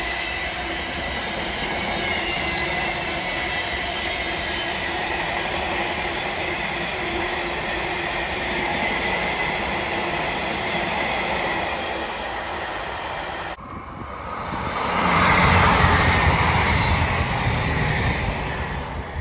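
Intermodal freight train wagons rolling steadily past over the junction, with a thin high squeal from the wheels on the curve. About thirteen and a half seconds in the sound cuts abruptly, and a diesel-hauled train swells up loud with a low engine drone, then begins to fade near the end.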